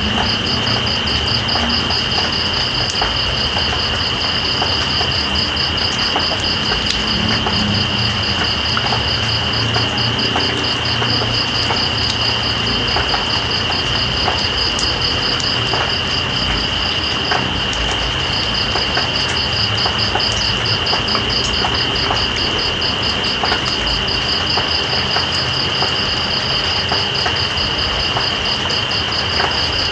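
Night insects such as crickets calling over the steady hiss of rain: one high continuous trill and a second fast pulsing call that stops briefly just past halfway, then resumes.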